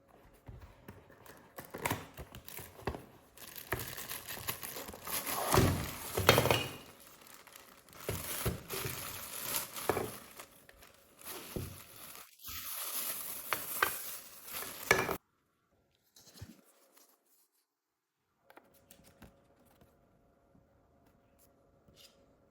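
Plastic packaging crinkling and being torn open, with knocks and clicks of handling, then cutting off abruptly about fifteen seconds in.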